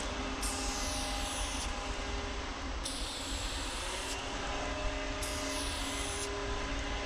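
Aerosol spray-paint can spraying in three bursts of about a second each, over a steady low rumble.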